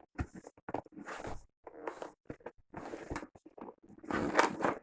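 Packaging rustling and crinkling as a box that is hard to open is pulled and worked at by hand, in irregular bursts with a louder one near the end.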